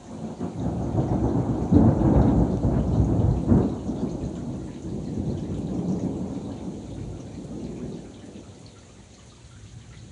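Thunder rolling in a long rumble that builds about half a second in, is loudest around two and three and a half seconds, then dies away over the next few seconds. Steady rain goes on underneath.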